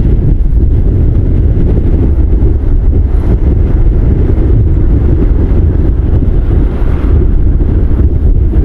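Strong storm wind buffeting the microphone: a loud, steady low rumble with no let-up.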